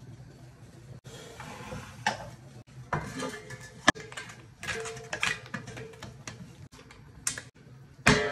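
A stainless steel couscoussier steamer basket and its silicone rim seal are handled and fitted onto the pot, giving irregular metal clinks and knocks with a sharp click just before the middle, among soft rustles of dry couscous grains under the hands.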